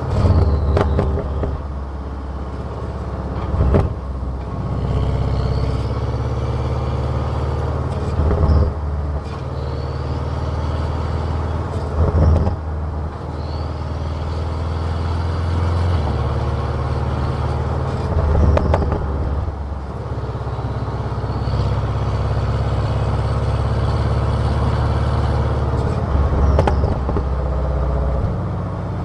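Car exhaust heard from a microphone close to the tailpipe: a steady low drone whose pitch shifts in steps several times, with short louder surges every few seconds.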